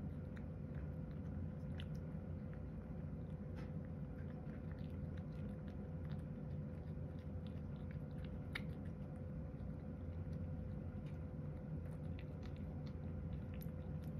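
A cat eating from a bowl: soft chewing with scattered small clicks, over a steady low hum.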